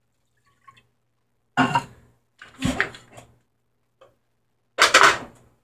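Water being poured into a metal saucepan in three short splashes, with the pot and measuring cup clattering.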